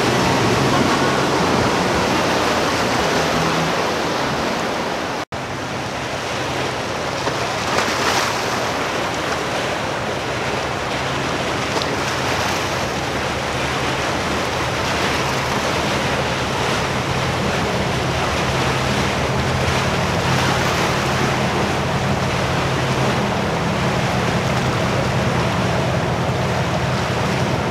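Powerboats passing close: the rushing wash of hull and wake through the water, with wind on the microphone, over a steady low engine drone. First an outboard center-console boat at speed; after a brief dropout about five seconds in, a sportfishing yacht's engines drone steadily under its wake.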